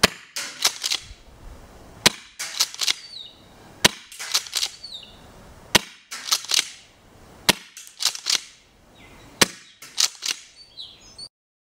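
Tokyo Marui M870 gas airsoft shotgun firing six shots, one about every two seconds, each sharp crack followed by a few quick clacks as the slide is pumped for the next shell. The sound cuts off suddenly near the end.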